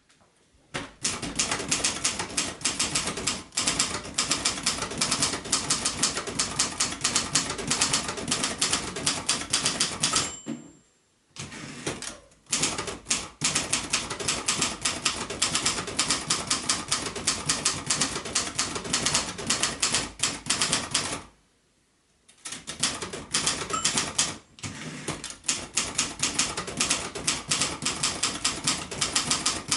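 Typing on a 1971 Royal Mercury ultraportable typewriter, built by Silver-Seiko: rapid, clattery keystrokes in long runs. The runs break off for a few short pauses, and there is a short high ring about ten seconds in.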